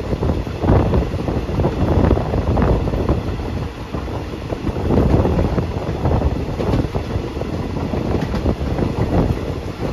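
Moving train: a steady heavy rumble with a dense, irregular rattle of wheels on the track.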